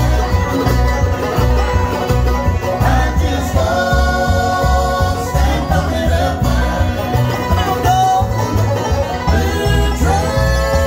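Bluegrass band playing live: banjo, mandolin and acoustic guitars picking together over a steady low bass beat.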